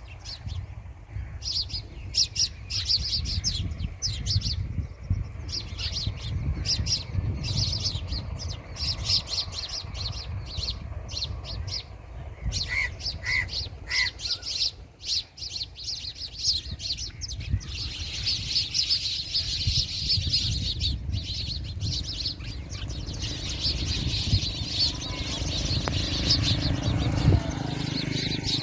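Birds chirping in quick, repeated high calls that thicken into continuous chatter in the second half, with three clear whistled notes about halfway through, over a steady low rumble.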